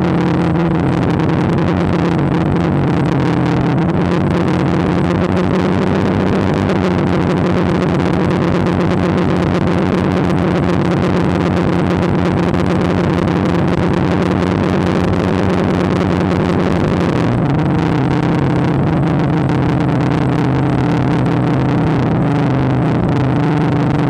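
DJI Phantom quadcopter's electric motors and propellers, heard from its onboard camera: a steady, loud hum whose pitch shifts slightly with the throttle a few times.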